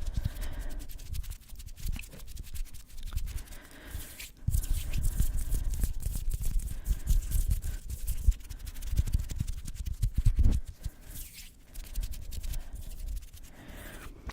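Close-microphone ASMR trigger sounds: low rumbling from hands moving and air blowing against the microphone, uneven and heaviest through the middle, with a couple of short hissy puffs and scattered light clicks.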